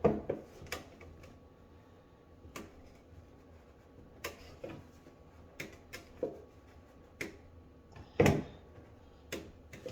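Scattered light clicks and knocks as a washing machine hose fitting is handled and hand-tightened, with one louder knock about eight seconds in.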